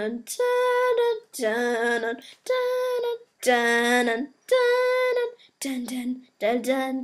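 A child's voice singing a slow wordless tune as a musical score, about one held, steady note a second. The notes turn shorter and quicker near the end.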